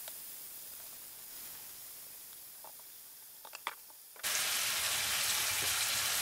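Chicken pieces frying in butter and cooking oil in a pan: a faint sizzle with a few light crackles, then a sudden jump to much louder, dense sizzling about four seconds in.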